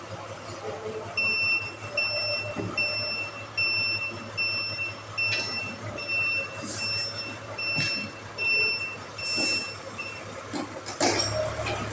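Truck's reversing alarm beeping steadily, a little more than once a second, over a low engine hum. The beeping stops about ten seconds in, and a louder knock follows near the end.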